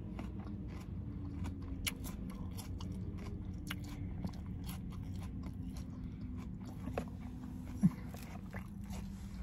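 A person chewing food close to the microphone, with scattered small clicks and crunches of the mouth and food.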